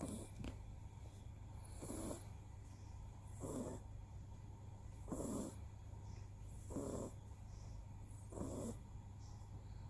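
A sleeping cat snoring, one short snore about every second and a half, six in all.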